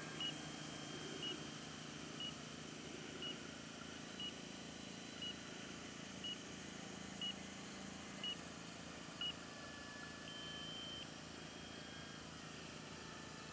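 RC transmitter flight timer running out: ten short high beeps about once a second, then one longer tone about ten seconds in, signalling that the five-minute flight time is up.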